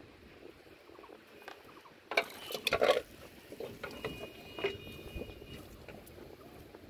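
A burst of sharp clattering knocks about two seconds in, then soft patter of barefoot footsteps on a wet, muddy bank.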